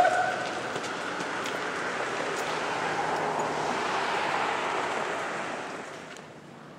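A steady rushing noise that swells a little in the middle and fades out near the end.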